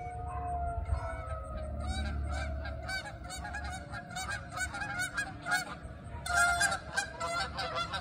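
A flock of geese honking over and over, with a burst of many calls at once near the end. Early on, the tone of an outdoor tornado warning siren, sounding for its monthly test, slides down in pitch and fades out.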